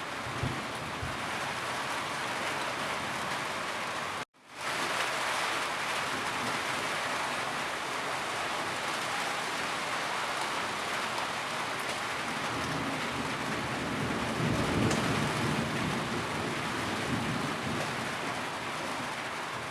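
Steady heavy rainfall. It cuts out abruptly for a split second about four seconds in, as at an edit seam, and a low rumble swells about three quarters of the way through.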